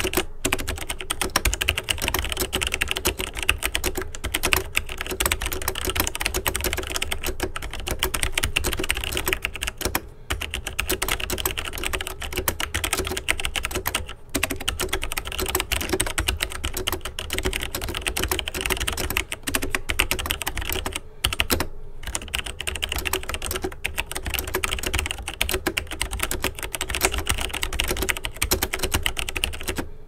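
Fast, continuous typing on a Logitech G613 wireless mechanical keyboard with Romer-G switches: a dense stream of key clicks at about 86 words per minute, broken by a few brief pauses.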